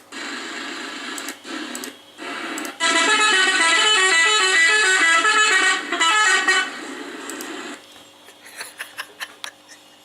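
Indonesian 'telolet' multi-tone bus horn playing a quick tune of stepped notes for about four seconds, starting about three seconds in. A rushing noise comes before it, and a few quick clicks near the end.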